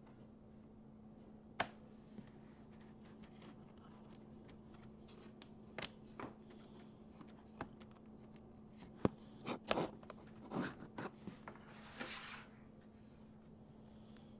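Plastic clicks and scrapes as a Dell Inspiron laptop's bottom cover is pried loose and lifted off, its clips snapping free. The sporadic clicks come thicker in the second half and end with a short scrape.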